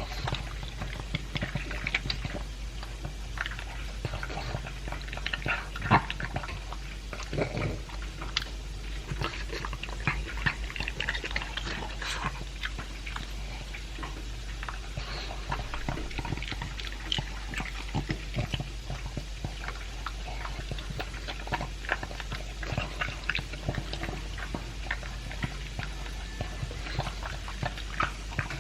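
A pug chewing dry kibble mixed with chunks of beef: a steady run of irregular crunches and wet mouth clicks.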